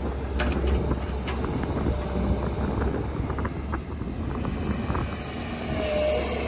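Diesel engine of heavy construction machinery running steadily, with scattered short clanks and knocks.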